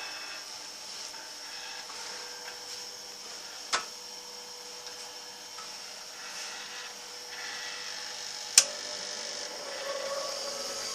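Bench grinder motor running steadily with a held hum and a hiss, the wheels spinning without load. Two sharp clicks break in, one about four seconds in and a louder one near nine seconds.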